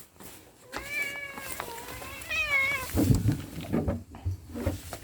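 Dog whining: two drawn-out, wavering high cries, the first about a second in and the second a little past two seconds, followed by some knocks and shuffling.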